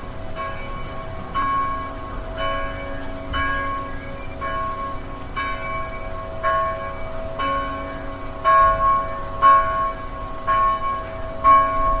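Church bell ringing at a steady pace of about one strike a second. Each ring hangs on under the next. The strikes grow louder in the last few seconds.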